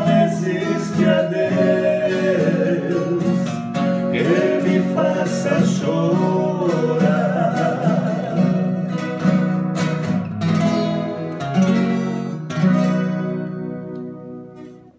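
Two acoustic guitars strummed and picked under two men's voices singing a Portuguese-language country duet. The singing ends, and a few final chords ring out and fade away near the end.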